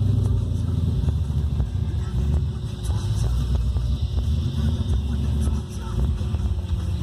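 1979 Holden VB Commodore's engine idling, a steady low-pitched run that holds an even level.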